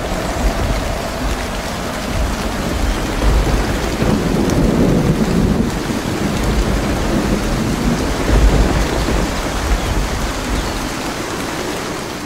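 Heavy rain pouring steadily with thunder, deep rumbles rolling in a few times.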